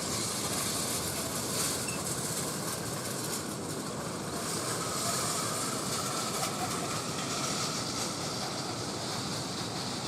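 Long playground roller slide rattling steadily as someone rides down it on a mat.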